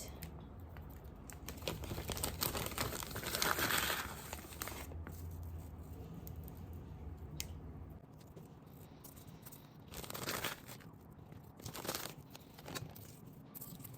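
Plastic crinkling and rustling as it is handled, in several bursts with small clicks; the longest burst comes about three to four seconds in.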